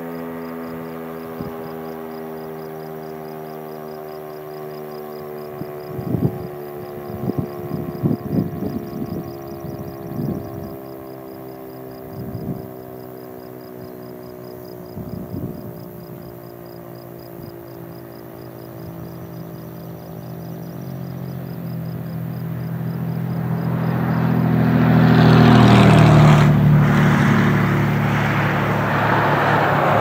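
Federal Signal STH-10B dual-tone warning siren winding down at the end of a test, its chord slowly sliding lower in pitch, with a few short knocks partway through. In the last third a passing vehicle's rumble swells up over it, loudest a few seconds before the end.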